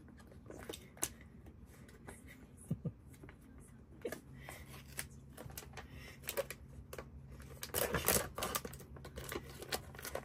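Clear plastic vacuum-seal bag crinkling and tearing as it is handled and opened, in scattered crackles with a denser burst about eight seconds in.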